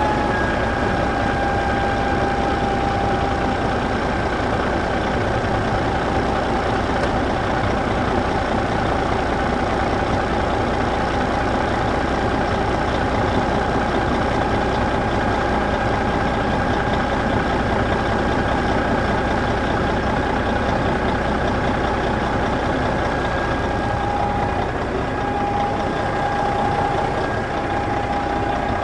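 Tractor engine idling steadily, a dense even rattle with a steady high whine over it.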